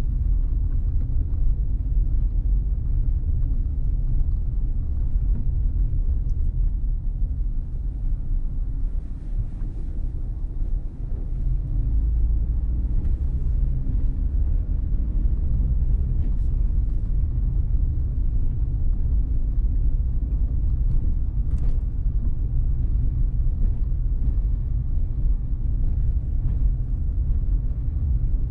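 Steady low rumble of a car being driven, engine and road noise with no other distinct event.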